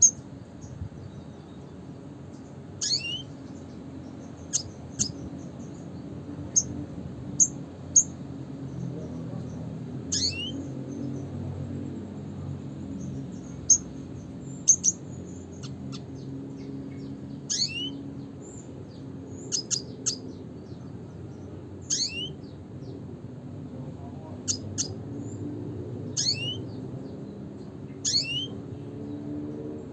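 Red siskin (Spinus cucullatus) calling: short, high call notes every couple of seconds, many of them quick downward-sliding chirps, some doubled, over a low steady background hum.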